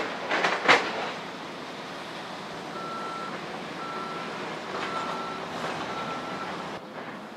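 A few loud bangs from demolition work in the first second, then a heavy machine's backup alarm beeping four times, about once a second, over the steady noise of machinery.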